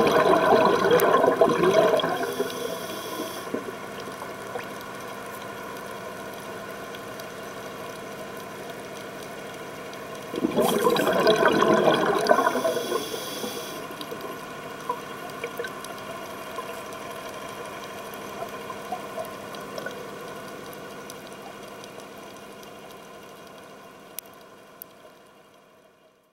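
Underwater, the auxiliary engine of a live-aboard dive boat hums steadily as many fixed tones. Twice, about 3 s at the start and again about 10 seconds in, a louder rush of bubbling covers it: a scuba diver exhaling through the regulator. The sound fades out near the end.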